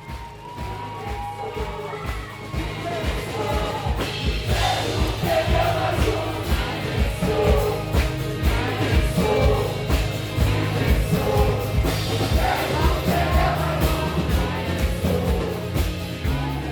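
Background music with singing and a steady beat, swelling in over the first few seconds.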